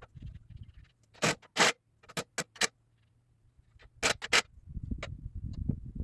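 A series of sharp knocks: two loud ones a little after a second in, three lighter ones soon after, and two more loud ones about four seconds in, followed by a low rumbling scrape near the end.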